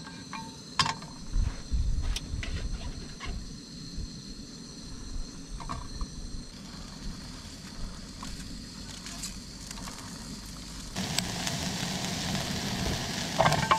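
Camp cooking on a small gas stove: a few sharp clicks and knocks of pan and utensils, then from about eleven seconds in a louder steady hiss of the burner and pan. Music comes in near the end.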